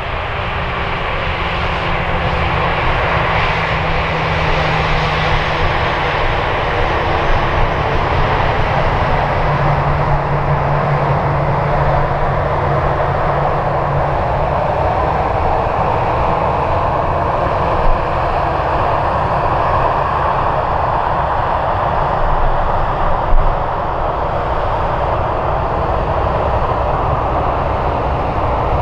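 Airbus A320-family airliner's twin CFM56 turbofan engines running at idle as it taxis past: a loud, steady jet rush with a low hum underneath that steps down slightly in pitch about ten seconds in.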